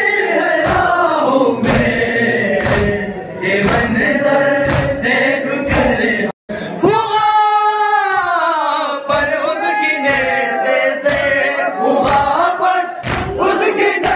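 A crowd of men chanting a noha, a Shia mourning elegy, together, over a steady beat of hands striking chests (matam) about once a second. The sound cuts out for a moment about six seconds in.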